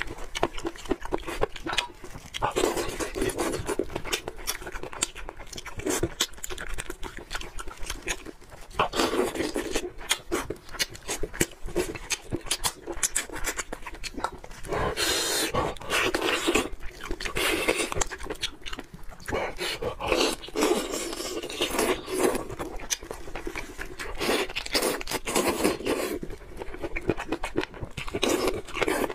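Close-miked eating sounds of steamed chicken being eaten by hand: wet smacking, sucking and chewing, with the meat being torn apart. Dense runs of clicks and smacks come in louder stretches every few seconds.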